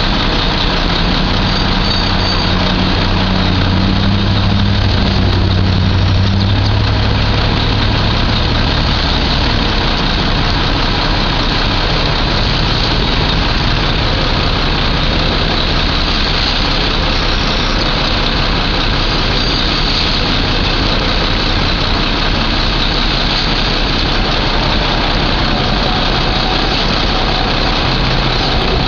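Heavy vehicle engine running steadily under a constant loud rushing noise; its low hum stands out most in the first third, then sinks into the rush.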